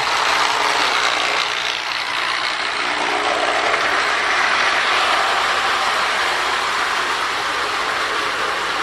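Marx pre-war Commodore Vanderbilt toy train locomotive running steadily along the track at slow speed, its electric motor and gearing whirring with a continuous rattle of wheels on the rails.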